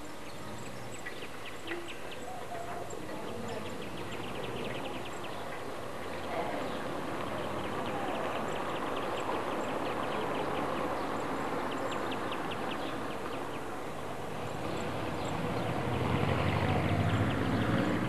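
Steady outdoor rushing noise that swells in the middle and again with a low rumble near the end, under repeated rapid, high chirping trills.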